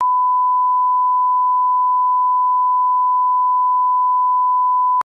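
A 1 kHz line-up test tone, the 'bars and tone' reference that goes with SMPTE colour bars: one steady, unchanging pitch that starts abruptly and cuts off just as abruptly about five seconds in.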